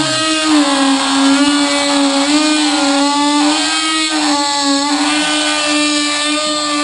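A power tool's motor running steadily with a whine, its pitch dipping slightly now and then as it works against the material, used in cutting out a truck's back glass.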